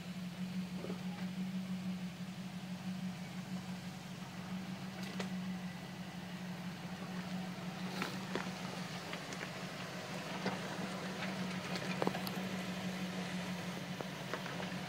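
Jeep Wrangler's engine running steadily at low revs while crawling down a steep dirt trail, with a few sharp clicks scattered through.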